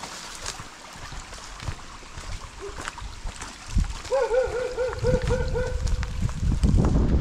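A dog yapping in a quick run of short, high barks, about four or five a second, starting about halfway through, over a low rumble.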